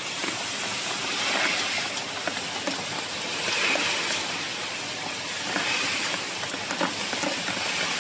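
Pet-food production line machinery running: a steady rushing hiss that swells and fades every couple of seconds, with faint ticks.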